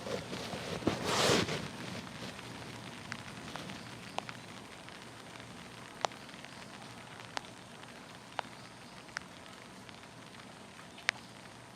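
Steady rain with heavy drops dripping one at a time at irregular intervals. About a second in there is a short, louder noisy burst.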